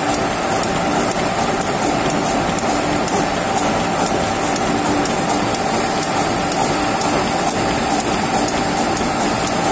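Gear-cutting machine running steadily as its gear-shaped cutter cuts teeth into a metal gear blank. It makes a steady hum with a regular clicking rhythm.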